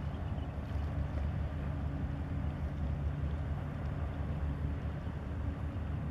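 Offshore crew boat catamaran's engines running with a steady low hum, under an even rushing noise.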